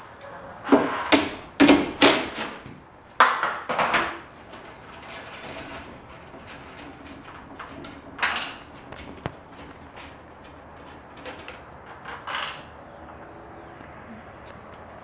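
A quick run of sharp knocks and clattering from hard objects being handled, then two softer single knocks or scrapes later on.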